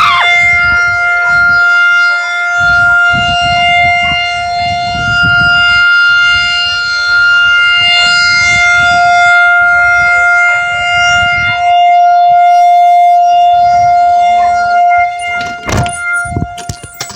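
Tornado warning siren sounding a loud, steady held tone that swells and fades slightly in loudness, over a low, gusty rumble. Near the end the siren drops away and there are a couple of sharp knocks.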